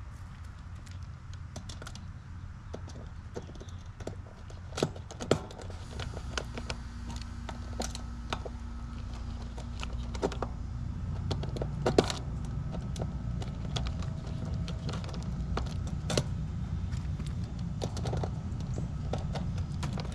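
Scattered small metallic clicks, taps and rattles of hand tools and wires being worked on an air-conditioning unit's electrical connections, with a few sharper knocks about five seconds and twelve seconds in, over a low steady rumble.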